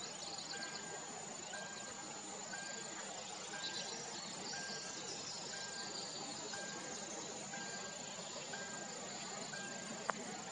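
Summer marsh ambience: a steady high-pitched insect drone with scattered chirring, and a short even note repeating about once a second. A single sharp click sounds near the end.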